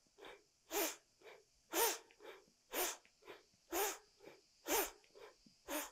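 A woman's powerful, forceful breathing in a Kundalini yoga breath exercise, inhaling as the arms reach up and exhaling as they come down. A strong breath comes about once a second, with a softer breath between each pair, in an even rhythm.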